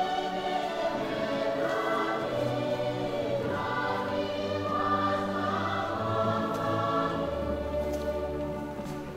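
Recorded choral music: a choir singing slow, sustained chords. A deep low note comes in about seven seconds in.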